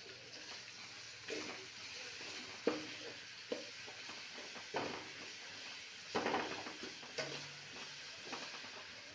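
Metal spatula stirring and scraping chopped tomatoes, onions and ginger-garlic paste as they fry in oil in a metal kadai. A steady sizzle runs underneath, broken by several sharp scrapes of the spatula against the pan.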